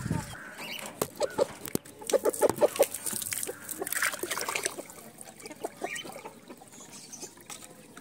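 Chickens clucking, with a run of quick clucks about two seconds in and scattered calls after. A few sharp knocks come just before the clucking.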